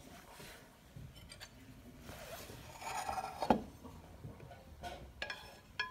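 Kitchen utensils and dishes being handled while food is plated: a stretch of scraping that builds to a sharp click about halfway through, then a few lighter clicks near the end.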